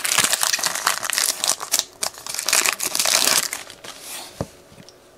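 Foil wrapper of a 2015 Panini Clear Vision football card pack crinkling loudly as it is torn open and the cards are pulled out. It dies down after about three and a half seconds into quiet handling of the cards, with a single click near the end.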